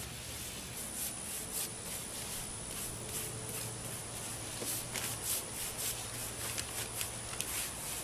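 Paintbrush scrubbing acrylic paint onto a hypertufa birdhouse roof: a string of short scratchy strokes, sparse at first and coming quickly over the second half.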